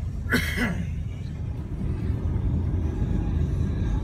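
Steady low rumble of a moving car's engine and tyres heard from inside the cabin, with a brief voice sound about half a second in.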